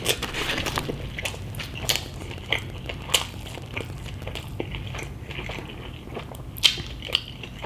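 A person biting into and chewing an Aloha Burger (beef patty, pineapple, bacon and sauce on a bun) close to the microphone, with scattered sharp wet mouth smacks and clicks.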